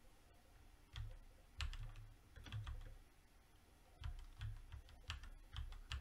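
Typing on a computer keyboard: two short bursts of keystrokes, the first about a second in and the second about four seconds in.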